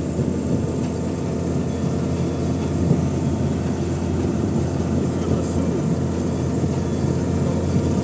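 Pickup truck engine running steadily while driving, heard from the open cargo bed as a constant low drone mixed with road noise.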